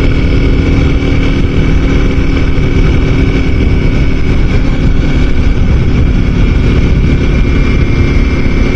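A small, mechanically noisy motorcycle engine running steadily while under way, with heavy wind rush, heard through a microphone inside the rider's helmet. A steady hum and a thin high whine sit over the rumble.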